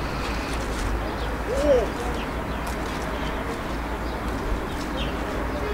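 Steady outdoor background noise with a low rumble and faint light clicks, and one short, low rising-and-falling hoot about a second and a half in.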